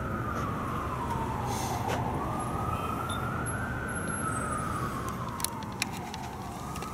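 Emergency vehicle siren in a slow wail, its pitch rising and falling about once every four seconds, over steady low background noise.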